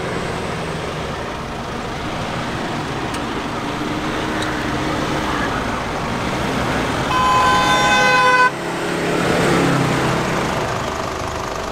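SUV engines running and revving on sand. About seven seconds in, a vehicle horn sounds steadily for about a second and a half and cuts off suddenly.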